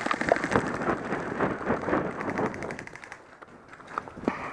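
Airsoft guns firing rapid full-auto bursts, a fast run of clicking shots: one burst at the start and another about two seconds in. Quieter near the end, with a couple of single knocks.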